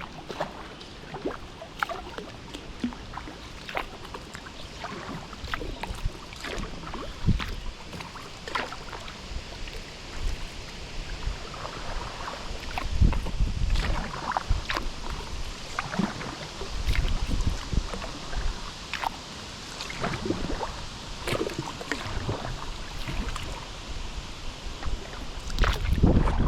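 Kayak paddle working the water: irregular small splashes and drips from the blades over a running water hiss, with wind buffeting the microphone now and then.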